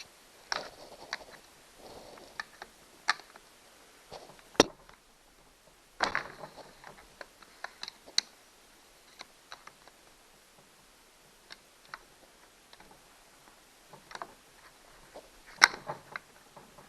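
Hand tool prying at parts of a Stihl 029 chainsaw during teardown: scattered light clicks and scrapes, with a sharp snap about four and a half seconds in and another near the end.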